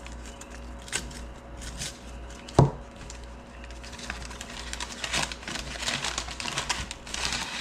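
Knife packaging being unwrapped by hand: paper and plastic rustling and crinkling with scattered small clicks, and one sharp knock about two and a half seconds in.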